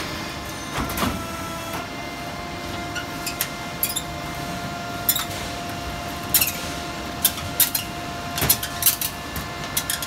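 STEELMASTER Auto Line VI sheet-metal duct manufacturing line running, with a steady hum and whine. It makes a series of sharp metallic clacks from its forming, punching and shearing stations, coming more often in the second half.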